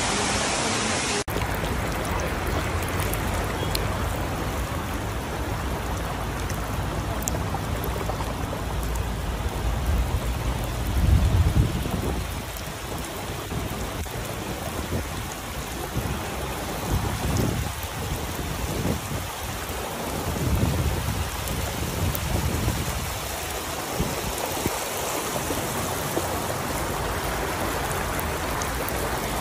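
Muddy floodwater rushing across a road in a steady noisy wash, with deep rumbles swelling and fading, the loudest about eleven seconds in.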